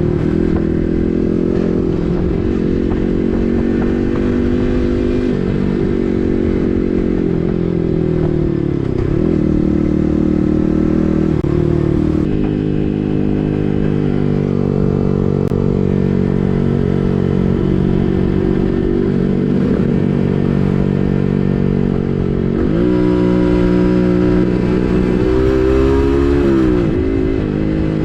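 Yamaha MT-15's 155 cc single-cylinder engine through an SC Project full-system exhaust, ridden at a mostly steady cruise. The note dips a couple of times as the throttle is eased, then climbs and falls again near the end.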